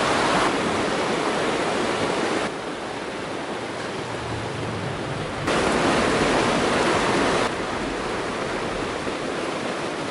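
Fast, rocky mountain creek rushing over stones: a steady rush of white water, whose loudness jumps abruptly up or down a few times.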